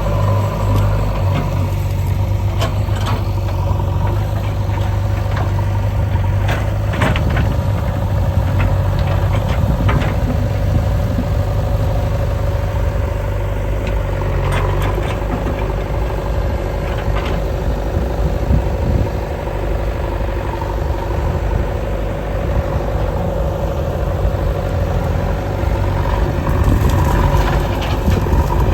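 JCB 3DX backhoe loader's diesel engine running steadily under a constant low hum, with a steady whine and scattered sharp knocks and clanks from the working machine.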